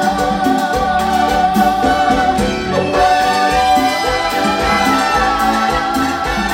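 A live dance orchestra plays an instrumental passage of a Latin ballad between sung verses: a long held melody line over a steady bass and percussion rhythm.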